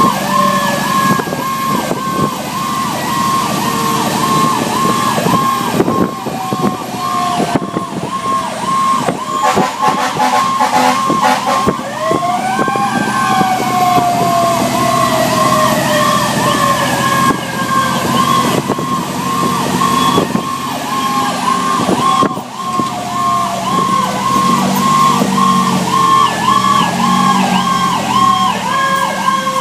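Fire engine sirens on an emergency run: a fast electronic yelp warbling about three times a second throughout, with a wailing siren tone that sweeps up sharply about twelve seconds in and then slowly falls in pitch, over the truck's steady low engine hum.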